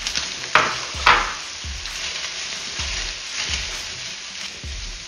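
Chopped onion going into hot oil in an electric frypan of browning chicken: two loud sizzle flares about a second in, then steady sizzling while a spatula stirs the pan in regular strokes.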